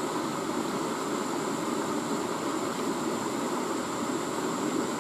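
Small river flowing over rocks: a steady rush of water, with a thin, steady high-pitched tone above it.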